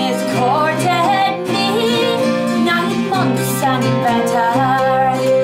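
A woman singing a folk song accompanied by two acoustic guitars.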